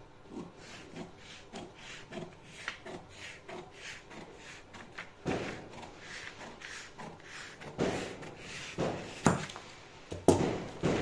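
Scissors cutting through the marked-out coat panel, with short snips about two a second, then a few louder knocks and rubbing sounds in the second half as the shears and the cut piece are handled.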